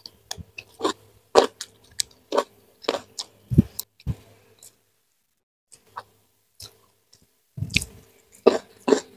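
Mouth chewing crunchy raw vegetables (lalapan, such as green leunca berries) close to the microphone: a run of short crisp crunches, about two a second, with a pause of about three seconds in the middle before the crunching starts again.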